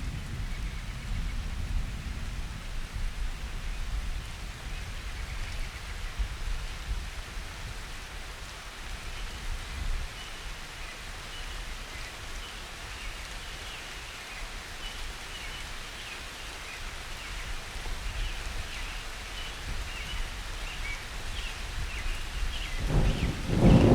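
Steady rain falling. The last of a low thunder rumble dies away in the first couple of seconds, and a new roll of thunder begins to build just before the end. Faint high chirps sound over the rain from about ten seconds in.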